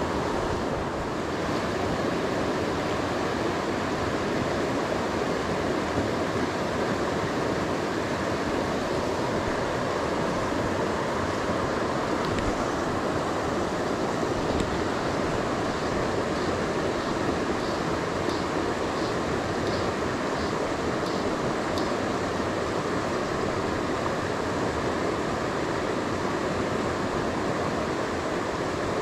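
Steady rush of flowing river water. Midway through comes a run of faint high ticks, a little more than one a second.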